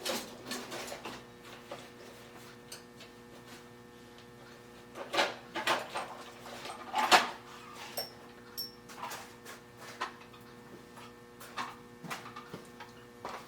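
Small metal tools and cutters clattering and clicking as someone rummages through a toolbox drawer, with a few louder knocks about five to seven seconds in.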